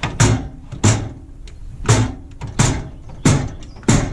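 Steel drawers of a US General tool chest being slid open and shut on their freshly lubed slides, about six quick strokes in a row, each with a rolling rush and a clack as the drawer stops.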